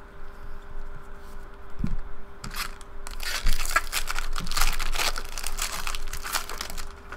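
Foil wrapper of a Bowman Jumbo baseball card pack crinkling and tearing as it is ripped open by hand, starting about two and a half seconds in, after a soft thump.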